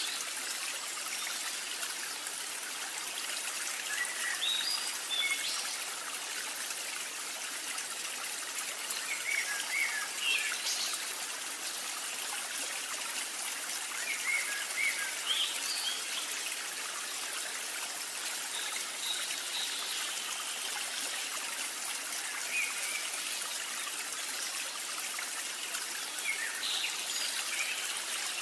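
Running stream with a steady trickling hiss, and short bird chirps every few seconds.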